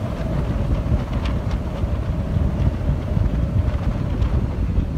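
Strong wind buffeting the microphone: a heavy, gusting low rumble with a faint whistle underneath.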